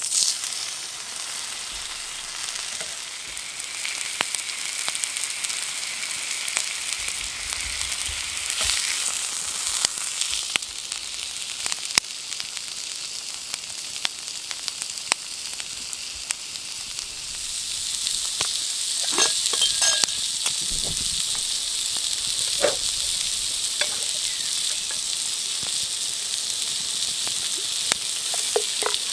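Steak sizzling in oil on a flat iron skillet over an open wood fire: a steady frying hiss with scattered sharp pops, growing louder a little past the middle.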